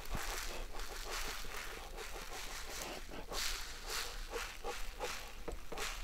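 A person blowing in a series of short breathy puffs across a small pile of oilseed rape seed, winnowing off the chaff and empty pods.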